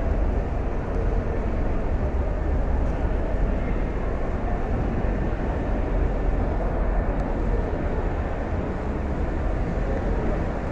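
Steady rumbling noise, heaviest in the low end, picked up by a handheld phone microphone on the move.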